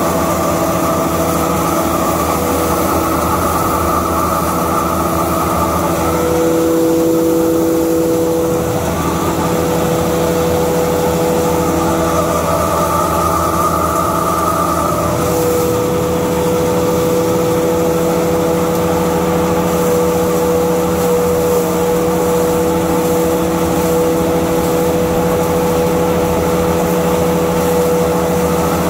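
A hammer mill with cyclone and a pellet mill, both three-phase electric, running together while alfalfa is milled and pressed into pellets: a loud, steady hum with several held tones that shift a little in strength.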